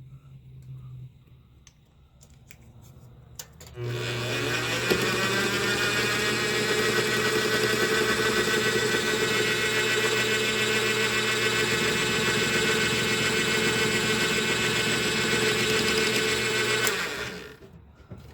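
A small high-speed electric motor on a lathe milling setup switches on about four seconds in and winds up in pitch, then runs steadily with a whine while a milling pass is cut across a copper bolt. It winds down near the end.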